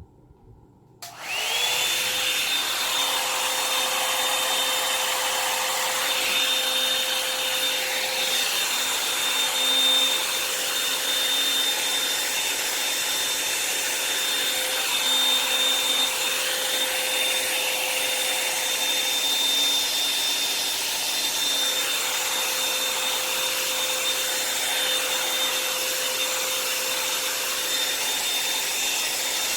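A Revlon hot-air dryer brush is switched on about a second in. Its motor quickly winds up to pitch, then it blows steadily with a high whine.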